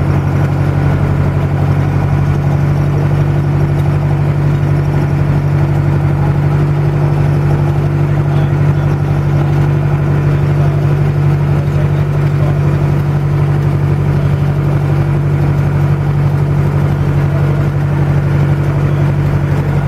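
Small passenger boat's engine running steadily while underway, a constant low drone that holds an even pitch and level.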